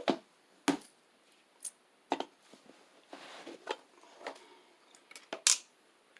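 Hands handling an electrical box and wiring parts: a string of sharp clicks and knocks, with a short scrape about halfway through.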